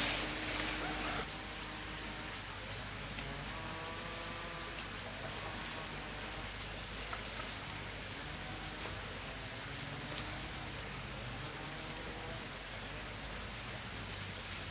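Insects trilling, a steady high-pitched tone, with faint wavering calls in the background.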